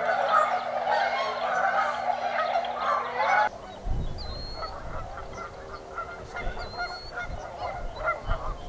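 A large flock of tundra swans calling together, a dense chorus of overlapping honking calls. It thins out about a third of the way in.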